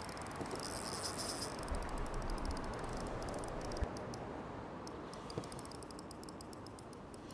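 Spinning reel ticking rapidly while a hooked fish is played on the rod, over a steady hiss; the ticking pauses briefly about halfway through.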